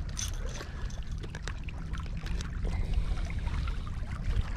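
Wind rumbling on the microphone, with water lapping and scattered small clicks.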